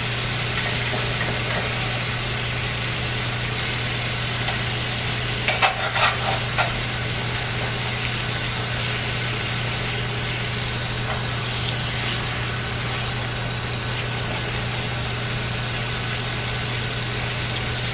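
New York strip steaks sizzling in butter in a cast-iron skillet: a steady frying hiss over a low hum. A few clicks of a metal fork against the pan come about six seconds in as the steaks are moved.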